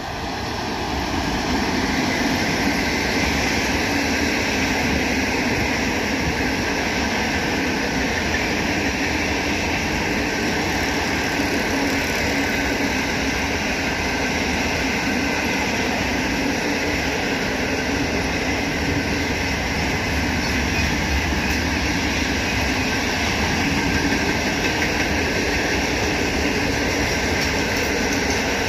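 Container freight train hauled by an electric locomotive passing close by, the wagons rolling past on the rails in a steady, loud run of wheel-on-rail noise. The sound builds over the first couple of seconds as the locomotive draws level and then holds.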